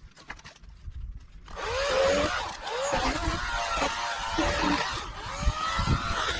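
EGO battery-powered electric chainsaw starting up about a second and a half in and cutting wood. Its whine dips and rises in pitch as the chain bites in and frees up.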